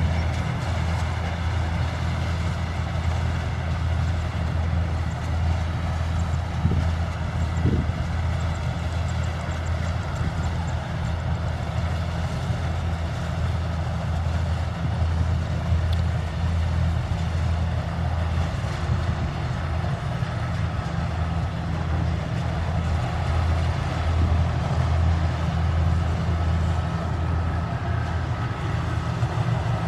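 Kubota rice combine harvester's diesel engine running steadily, with the machine's mechanical clatter spread over it.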